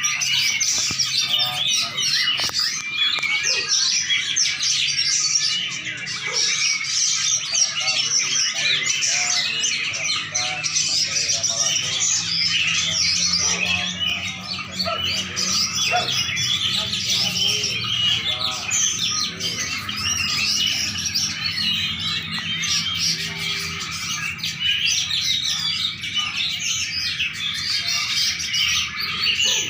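Caged songbird singing a continuous, rapid stream of high chirps, trills and twitters without a break.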